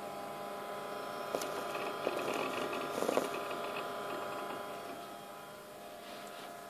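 Power Macintosh 7500 running as it boots Mac OS 8.6, a steady hum of several fixed tones from its fan and spinning drive. A cluster of clicks and rattles comes about one and a half to three seconds in.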